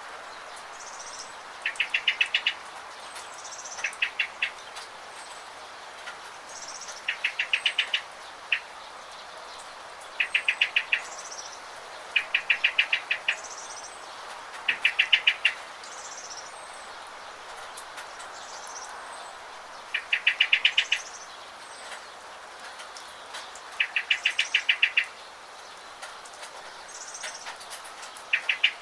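A songbird repeats a short, fast, rattling trill every two to three seconds, with faint higher chirps between, over a steady hiss of rain.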